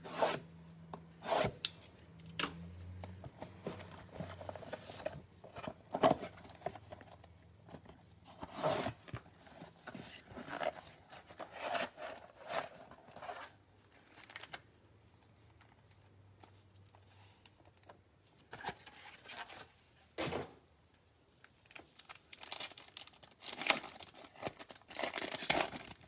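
Cardboard trading-card box and its packs being opened by hand: rubbing and tearing of cardboard and wrapping with scattered sharp clicks. Near the end comes a dense stretch of crinkly tearing as a foil card pack is ripped open.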